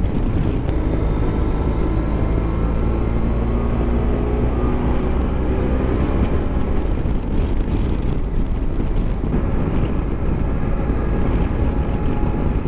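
BMW F700GS motorcycle's parallel-twin engine running steadily at road speed, with wind rushing over the microphone.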